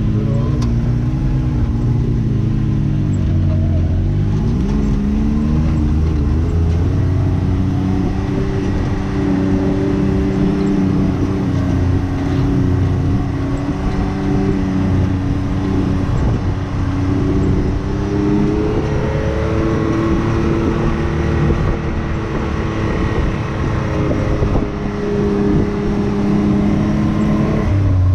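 Can-Am Maverick X3 side-by-side's turbocharged three-cylinder engine running under varying throttle on a dirt trail, its pitch rising and falling over a steady low rumble.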